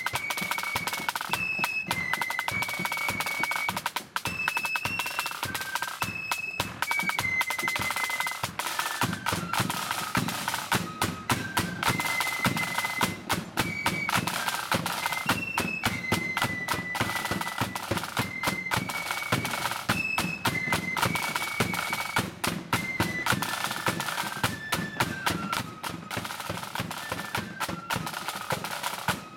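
Marching flute band playing a tune: a high flute melody over rapid snare drum strokes and a bass drum.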